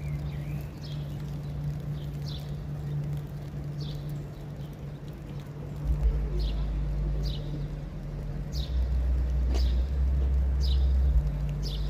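A bird calling with short, high chirps that drop in pitch, repeated roughly once a second. Under it runs a steady low hum, with bursts of low rumble about halfway through and again near the end.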